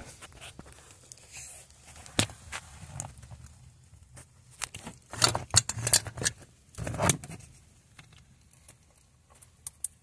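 Hands working plastic heater-fan ducting and a shroud under a dashboard: scattered clicks, knocks and rustling, with a cluster of sharper knocks around the middle.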